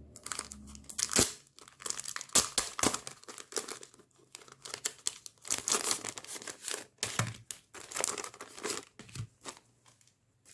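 Plastic or paper packaging of a postcard-shaped album insert being torn open and crinkled by hand, in irregular rustles and crackles that pause near the end.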